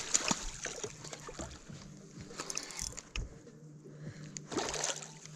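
A hooked smallmouth bass splashing at the surface beside a boat while a spinning reel is cranked, with light clicks and knocks over a low steady hum. Another burst of splashing comes near the end.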